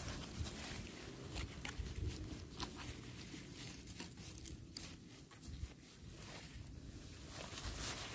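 Faint scraping, crackling and rustling of a knife prying into hard, dry soil among grass stems around a mushroom's base, with small scattered clicks.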